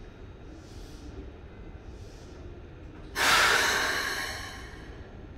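Compressed air venting from a stopped Keikyu 600-series train: a sudden loud hiss about three seconds in that fades away over about a second and a half, over a low steady background.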